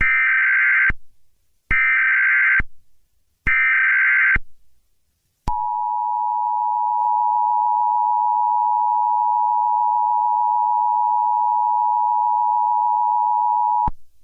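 Emergency Alert System tones. Three short bursts of SAME digital header data come about a second apart, then the steady two-tone EAS attention signal (853 Hz and 960 Hz) sounds for about eight seconds and cuts off abruptly, announcing an alert message.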